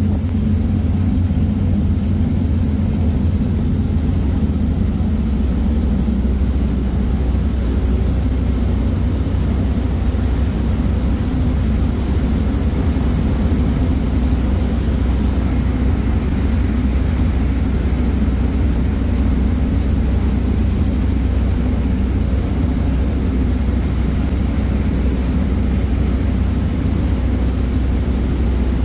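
A ferry's engines running steadily at cruising speed, a deep constant drone, with the rush of the churning wake behind the stern.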